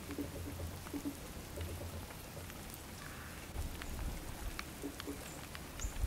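Steady rain-like patter with scattered sharp ticks, over faint background music with a low beat.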